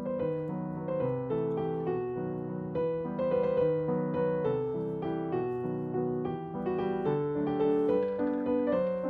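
Background piano music: a steady melody of evenly paced notes.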